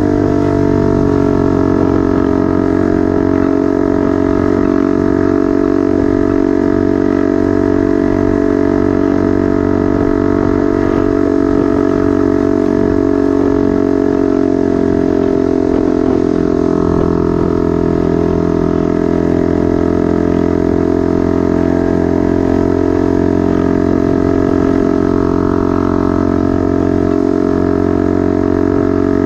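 Motorcycle engine running through a temporary exhaust at fairly steady revs, a loud continuous drone whose pitch eases down about a second in and shifts slightly around the middle.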